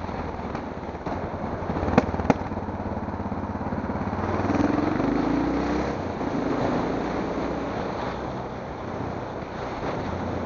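Steady rumble and wind noise of a moving camera rolling over brick paving, with two sharp clicks about two seconds in, a fraction of a second apart.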